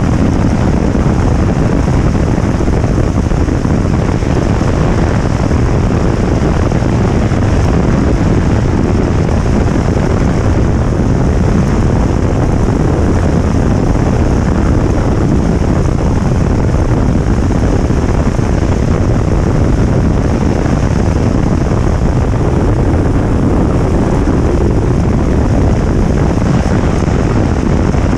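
Bass boat running wide open at over 90 mph: its Mercury 400R outboard at full throttle, under heavy wind noise on the microphone and the hull's rush over the water. A loud, steady noise with no change through the run.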